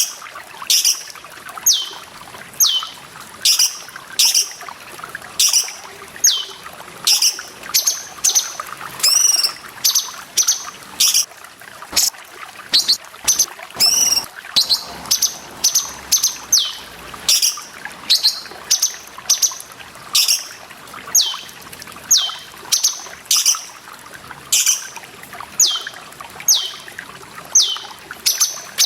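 Cucak cungkok calling over and over, short sharp notes that sweep sharply downward, about one or two a second, over the steady sound of trickling water.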